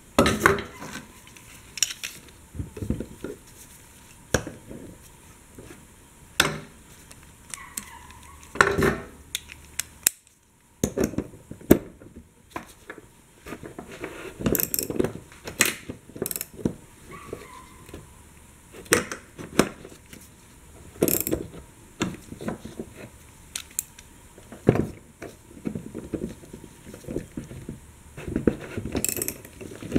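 Irregular metallic clicks, taps and knocks of hand tools on the fuel tank's sending unit fittings and retaining ring.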